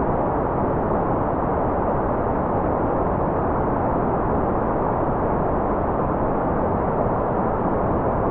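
Continuous white noise: a constant, even hiss that stays at the same level throughout, dull rather than bright, with most of its energy in the low and middle range.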